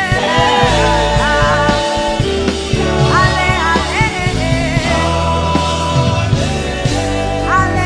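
Worship music: a voice sings held, sliding melodic phrases over a steady sustained instrumental backing.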